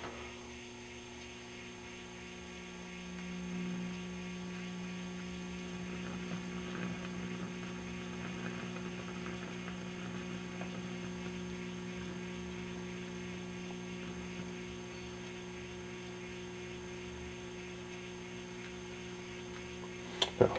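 GE 212 tube radio's speaker giving out a steady mains hum with faint hiss and no station coming through on AM, a little louder from about three seconds in. The AM fault is still there after the 19T8 tube swap, the owner says.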